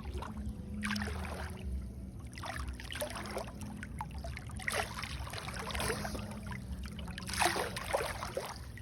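Water splashing and sloshing in repeated surges about once a second, over a low steady hum.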